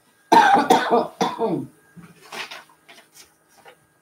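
A woman coughing three times in quick succession, then a few faint rustles as paper is handled.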